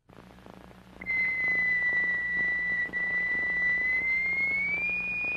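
A steady, high-pitched pure electronic tone, the driving frequency of a cymatics experiment, starts about a second in and steps up slightly in pitch near the end, over a low hum.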